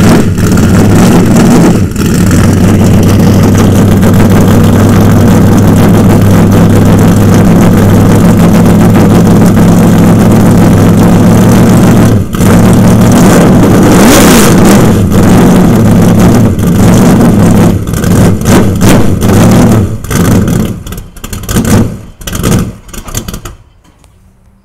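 Small-block Chevy V8 of a late model stock race car running loud and steady at idle, with one rev up and back down about halfway through. Near the end the sound swells and drops unevenly, then the engine cuts off.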